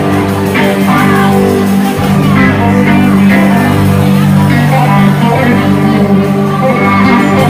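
Live rock band playing loud, with electric guitars over a drum kit.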